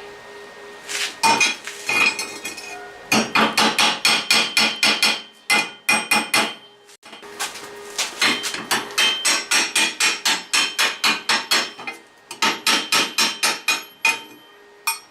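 Small hammer striking steel in quick runs of about five blows a second, each blow ringing, with short pauses between the runs.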